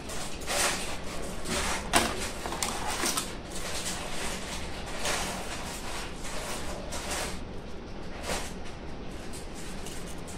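Close handling noise of biscuits being pulled apart and turned over in the fingers: irregular rustles and swishes, with one sharp click about two seconds in.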